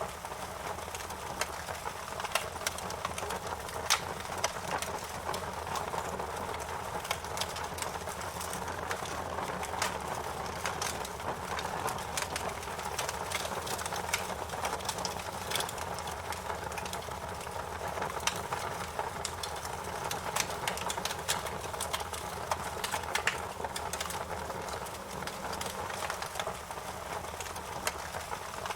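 Wood fire in a fireplace crackling: a steady hiss with constant small crackles and occasional louder pops.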